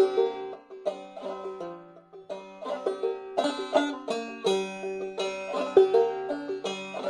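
Five-string banjo played clawhammer style in sawmill tuning: a steady run of down-picked notes with brush strums across the strings mixed in.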